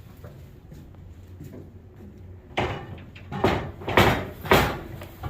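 A run of loud knocks and scrapes, four or five in about three seconds, beginning a little past the middle after a quiet stretch.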